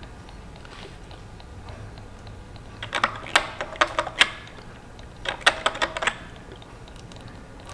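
Quick clusters of small plastic clicks and taps as the drain valve at the bottom of a diesel fuel water-separator bowl is handled by gloved fingers. One cluster comes about three seconds in and another about five and a half seconds in, over a faint low hum.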